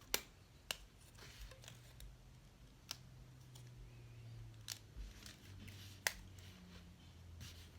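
Rubber band being wound and tied around two crossed wooden popsicle sticks: a handful of sharp clicks and taps a second or two apart, over a faint low hum.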